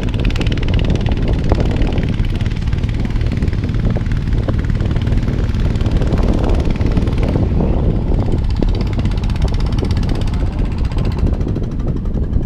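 Wind buffeting the camera's microphone: a loud, steady low rumble with no clear pitch, and a hiss above it that fades after about seven seconds.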